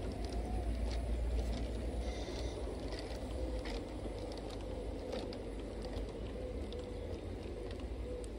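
LGB G-scale model trains running on the layout: a faint motor whine that wavers in pitch, with scattered clicks from wheels on the track, over a low steady rumble.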